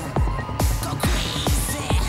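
Electronic dance music with a steady, fast kick-drum beat, about two beats a second.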